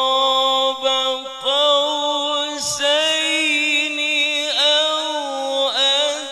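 A man's voice reciting the Qur'an in melodic tilawah style, holding long notes and ornamenting them with quick pitch dips, with a short breath about a second and a half in.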